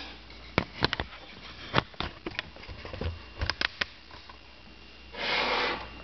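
Light clicks and taps of kitchen items being handled, scattered over the first four seconds, then a short hissing rush about five seconds in.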